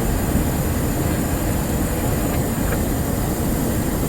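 Steady low rumble of a Douglas DC-8 airliner in flight, heard inside the passenger cabin: engine and airflow noise.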